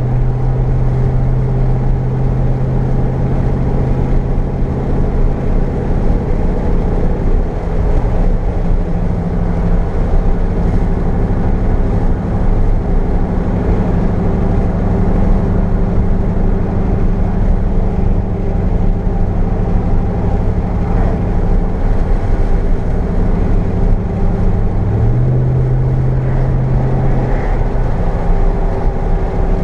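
Ram pickup truck running down the road, a steady engine hum with tyre and road noise. The engine note steps up in pitch about a quarter of the way in, drops back near the end, then rises again.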